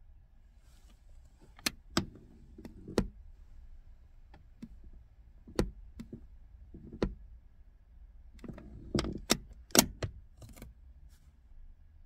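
Handbrake lever of a VW Polo Mk4 being raised and lowered, its ratchet giving sharp clicks in irregular clusters with some low rubbing between them.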